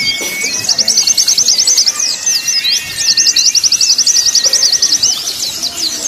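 Pleci (white-eye) birdsong: two long runs of rapid, high chattering trills, with a thin, drawn-out whistle beneath them.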